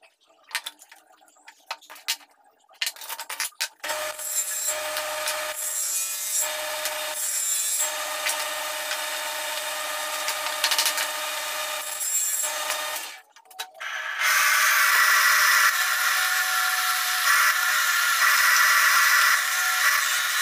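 Small wooden pieces clacking as they are handled, then a power tool running in spurts with a steady whine. From about fourteen seconds in, a homemade bench disc sander grinding the edge of a small wooden piece, louder and steady.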